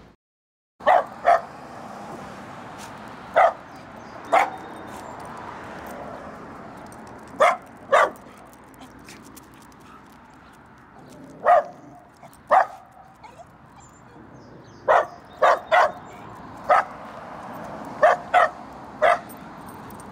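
A dog barking: about fifteen short, sharp barks, often in quick pairs, spaced irregularly, over a steady background hiss.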